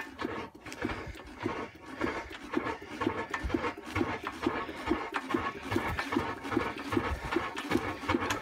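Antique single-cylinder Imperial Super Diesel hit-and-miss engine being spun over by hand crank without firing, giving a steady rhythmic beat about three times a second.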